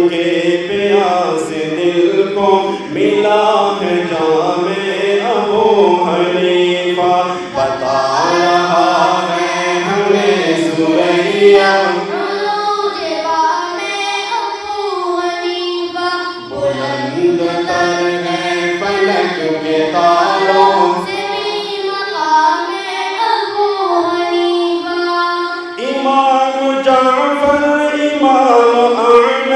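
Urdu devotional song (naat) sung in a chanting style, layered voices carrying the melody, which moves to a new phrase about 26 seconds in.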